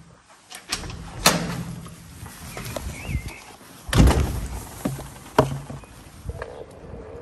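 Sharp knocks and thumps of a door and of a Onewheel electric board being carried and set down, the loudest about four seconds in. Near the end comes a faint whine that slowly rises in pitch, from the Onewheel's hub motor as the ride starts.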